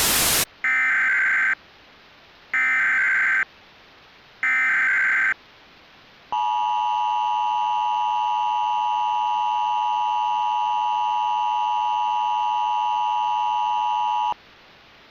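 Emergency Alert System tones: three short bursts of warbling digital header data about a second apart, then the steady two-tone attention signal for about eight seconds, cutting off abruptly. The sequence opens a law enforcement warning broadcast.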